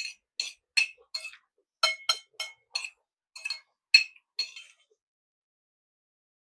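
Metal cutlery clinking repeatedly against a plate or bowl while taking food: about a dozen quick, bright clinks over the first four and a half seconds, then it stops.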